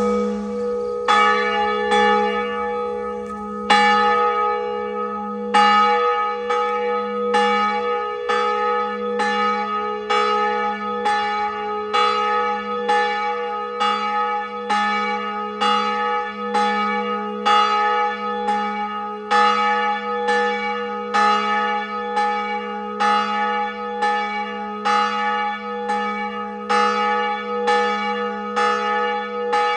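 Church bell tolling, struck about once a second after a few slower opening strokes. Each stroke rings on into the next over a steady low hum.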